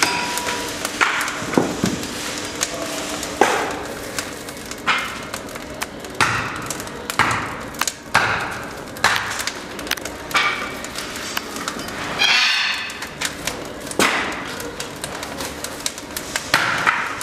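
Firewood burning in a fireplace firebox, crackling and popping at irregular intervals with short hissing flare-ups.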